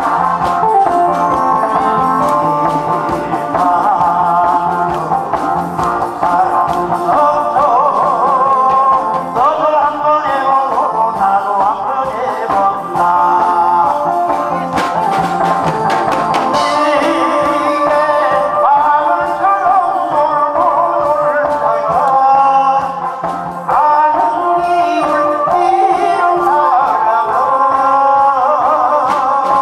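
A man singing a Korean trot song into a microphone over an amplified backing track.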